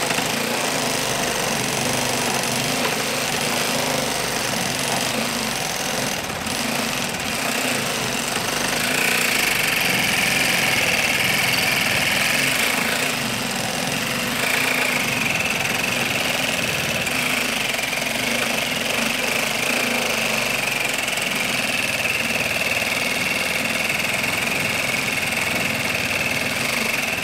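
TackLife 12-volt mini reciprocating saw running continuously, its Milwaukee carbide blade sawing slowly through a 4x4; a steady higher tone joins the sound about nine seconds in. The blade is cutting poorly, which the owner thinks makes the cut worse than the previous blade did.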